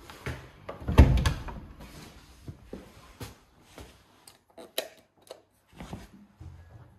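Household handling noises: a heavy thump about a second in, then a scattered run of short knocks and clicks, like drawers, doors or objects being moved.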